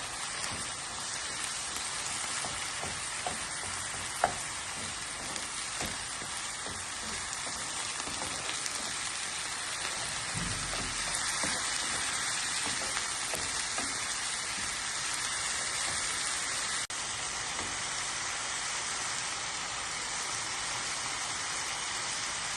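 Food sizzling steadily in a hot frying pan, with a few light clicks of a utensil against the pan, the sharpest about four seconds in.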